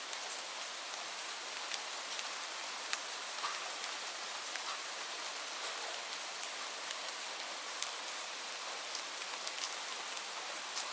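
Steady rainfall pattering on leaves: an even hiss with many scattered sharp drop ticks.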